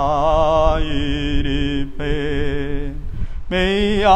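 A man singing a slow Malayalam Passion hymn solo, drawing out long notes with a heavy wavering vibrato over a steady held lower note. There is a brief break about three seconds in before the next phrase begins.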